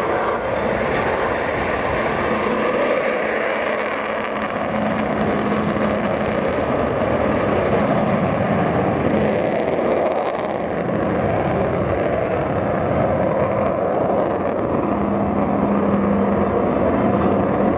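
Jet aircraft engines running steadily, with a faint hum that comes and goes and some crackle around a third and a half of the way through.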